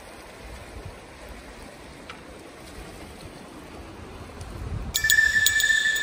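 Rough sea washing against the rocks of the shore, a steady rush of water. About five seconds in, a louder added sound with steady high ringing tones cuts in sharply over it.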